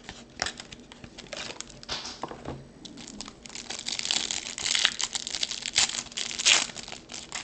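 Plastic trading-card pack wrapper crinkling as it is torn open and the football cards inside are pulled out. It is a run of crackles that gets busier and louder in the second half.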